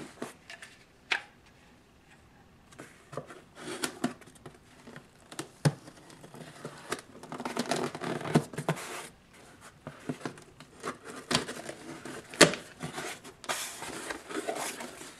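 A knife slitting packing tape on a cardboard shipping box, with rasping tears and scrapes and a few sharp knocks, the loudest about twelve seconds in. Near the end the cardboard flaps are pulled open.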